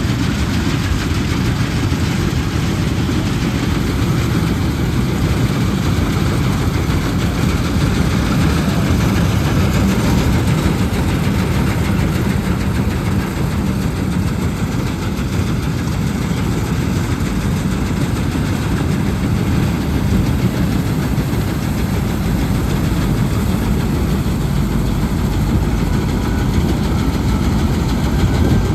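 Balkar 654 combine harvester's diesel engine running steadily, a loud low hum that holds even throughout.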